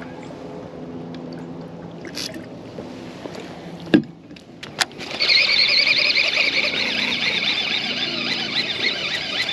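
A low steady motor hum, then a sharp knock about four seconds in and a click. After that a baitcasting fishing reel whirs fast and loud for about five seconds and cuts off suddenly at the end.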